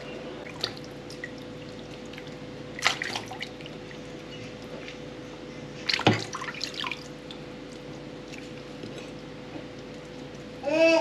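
A few wet clicks and knocks of cooked chicken being handled and pulled off the bone, the loudest with a dull thud about six seconds in, over a steady faint hum. A short voice sound comes just at the end.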